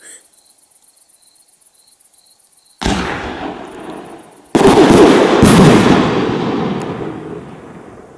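A 100 mm aerial firework shell: a sharp launch thump from the mortar almost three seconds in, then about two seconds later a louder burst whose boom rolls on and fades over about three seconds. Crickets chirp faintly before the launch.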